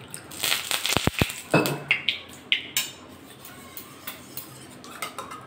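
A spoon clinking and tapping against a steel bowl in a quick, irregular run of strokes, some ringing briefly, as ground cumin and ginger paste are stirred with water into a paste. The tapping stops about three seconds in.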